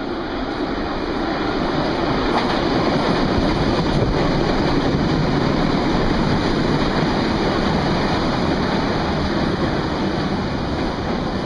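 Berlin U-Bahn train arriving at an underground platform, its wheels and running gear loud on the rails. The noise swells over the first couple of seconds, holds, then eases slightly near the end.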